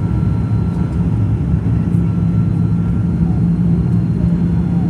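Airliner coming in to land: a steady low drone of engines and airflow, with a faint steady whine above it.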